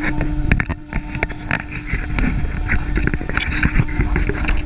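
CaMaster CNC router machining wood: the spindle runs with a steady hum while the bit cuts, with heavy rumble and frequent sharp clicks throughout.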